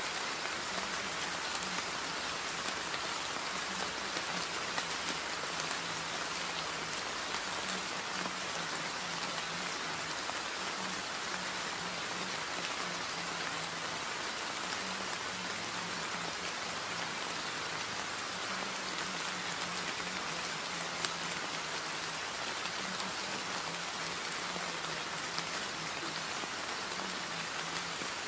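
Steady recorded rain falling on a surface, an even dense hiss, with a faint low hum that comes and goes beneath it.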